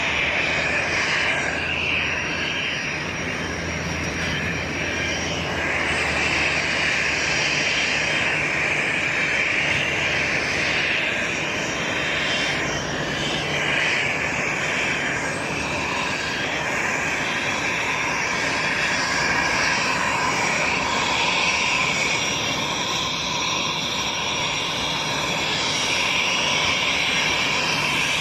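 Airplane engines running steadily: a continuous rushing noise with a low hum beneath it.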